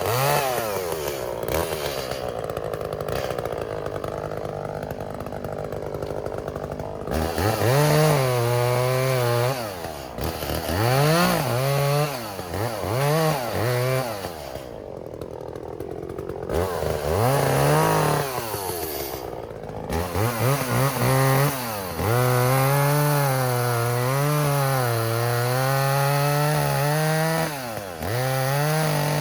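Echo two-stroke chainsaw cutting into a tree. It revs up from idle to full throttle again and again, held for a few seconds each time, the longest spell near the end with the pitch wavering under load, and drops back to idle between cuts.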